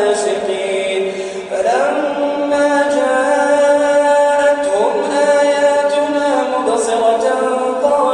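A man's voice reciting the Quran in melodic chanted tajwid. He holds long notes and slides up in pitch a couple of times, with a brief breath dip about a second and a half in.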